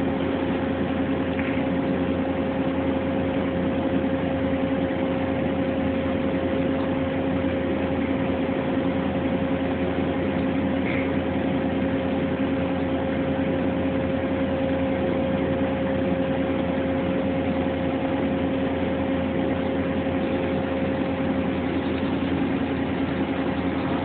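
Steady mechanical hum of shop machinery running, a constant pitched drone over a bed of noise that holds the same level throughout.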